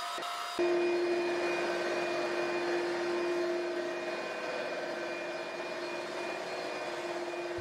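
Household floor polisher's motor running with a steady hum as its white non-abrasive fibre pads work a slurry of water and polishing powder into a marble floor, the final polishing stage. The hum comes in abruptly about half a second in.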